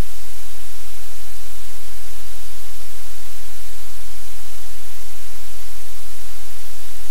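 Loud, steady static-like hiss over a low hum, unchanging throughout.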